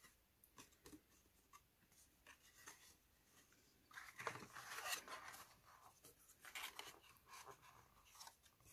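Faint rustling and small taps of cardstock being handled and pressed together as two paper parts are stuck. A louder paper rustle comes about four seconds in, and another near seven seconds.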